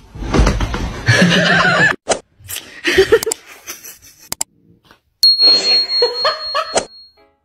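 People laughing over short clips of cats, with scattered clicks. A steady high tone sounds from about five seconds in until near the end.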